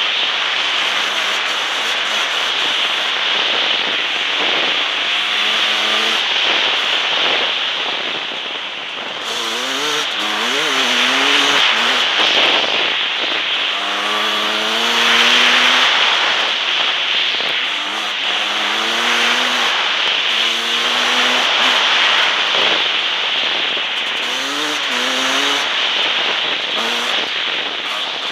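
Husqvarna WR300 two-stroke enduro motorcycle engine at speed, its pitch rising in repeated runs as the rider accelerates and shifts up several times. A loud steady rush of wind over the microphone runs underneath.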